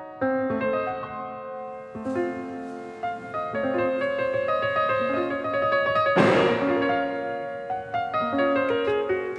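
Solo piano music, a steady run of separate notes. About six seconds in, a short loud noise burst swells up and dies away over about a second.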